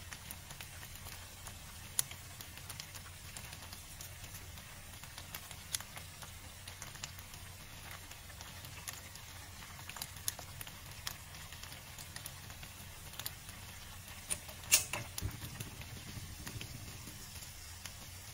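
Creamy pasta sauce simmering in a frying pan, faint, with scattered small pops and crackles and a sharper click about fifteen seconds in.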